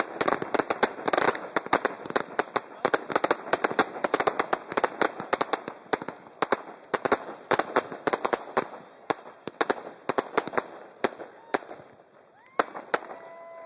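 Aerial fireworks display: many shells bursting and crackling in quick succession, the bangs thinning out near the end. Then a few rising whistles come in.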